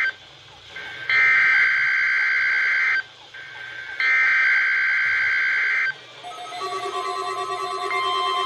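NOAA Weather Radio SAME digital header bursts for a Required Weekly Test: raspy two-tone data bursts about two seconds long with a second's gap, twice. From about six seconds in, weather radio receivers' alert tones sound together, a mix of steady and pulsing beeps.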